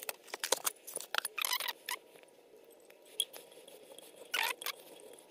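Handling noise from a stainless steel tumbler being seated in a metal vinyl edge trimmer and worked to trim its vinyl wrap. Clicks and knocks come in the first two seconds. Short rustling scrapes follow about a second and a half in and again near four and a half seconds.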